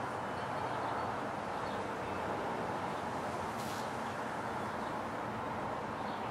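Steady outdoor street noise: an even hum of traffic, with a brief hiss about three and a half seconds in.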